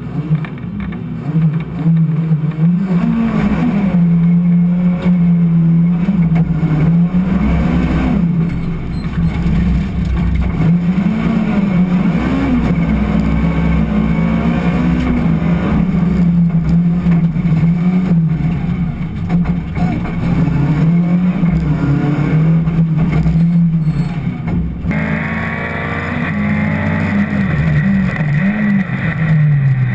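Rally car engine heard from inside the cabin at racing speed, its pitch rising and falling again and again as the driver works through the gears and corners. About 25 seconds in the sound changes, becoming hissier as the view switches to a footwell camera.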